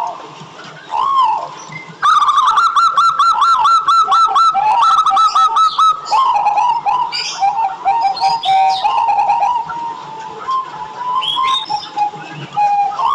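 Zebra doves (perkutut) cooing. About two seconds in comes a fast run of short, arching coos lasting some four seconds, followed by slower, scattered coos.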